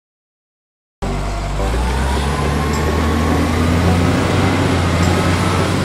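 About a second of dead silence, then a truck engine sound cuts in abruptly and runs steadily, with a deep hum and a faint whine slowly rising in pitch.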